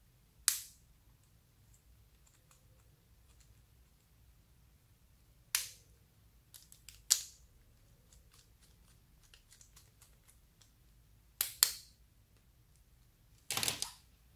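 Slime being pressed and stretched, giving off sharp pops and clicks from trapped air. There are single snaps about half a second in and twice in the middle, a quick pair later, and a short crackling run near the end, with faint small clicks between them.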